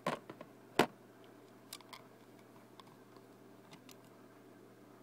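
Plastic Lego pieces clicking and tapping as they are handled and pressed into place: a few sharp clicks, the loudest about a second in, then scattered lighter ticks.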